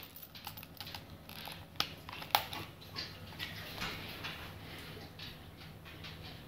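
Handling noise from a leather shoulder-holster magazine pouch: two sharp clicks about two seconds in, then softer clicks and rustling of leather and clothing.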